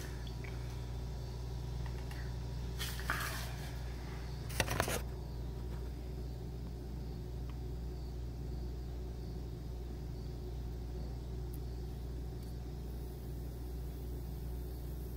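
Steady low hum of background noise, with two short rustling knocks about three and five seconds in.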